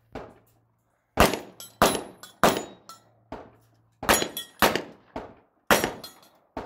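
Pistol shots fired in quick strings, roughly half a second to a second apart, about seven loud reports with a few quieter ones between and a short pause after the third.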